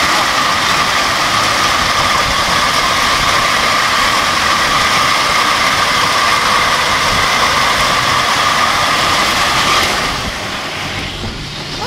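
Heavy hail with golf-ball-sized stones pelting down in strong wind: a loud, dense, steady noise with a faint steady tone running through it. It eases about ten seconds in.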